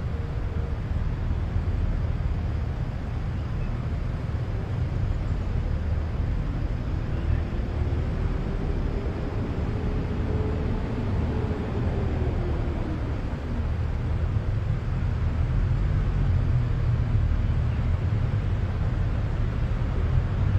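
Steady low outdoor rumble with no speech, and a faint whining tone that rises and falls gently over several seconds midway.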